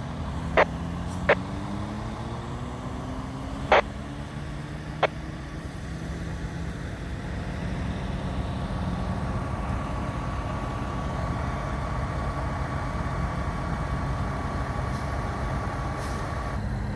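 Emergency vehicle engines running, one engine rising slowly in pitch over the first few seconds. Five sharp clicks or knocks come in the first five seconds. From about six seconds a steady high whine holds until shortly before the end.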